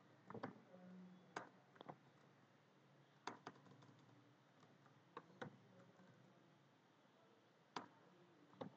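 Faint keystrokes on a computer keyboard: about a dozen short, irregular clicks with pauses between them.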